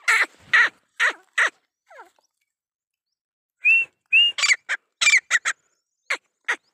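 Quail calling: a series of short, sharp calls, four in the first second and a half, then after a pause about ten more in quick groups, a few with a brief whistled note.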